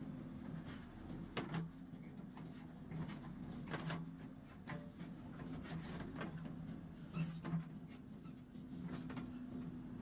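JCB 3DX backhoe loader's diesel engine running steadily, its pitch holding while its level swells and eases, with scattered knocks and clanks on top. The loudest clanks are a pair about seven seconds in.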